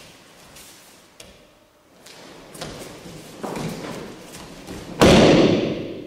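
An aikido partner thrown onto tatami mats, landing in a breakfall with one loud thud about five seconds in. Softer scuffing sounds come a second or two before it.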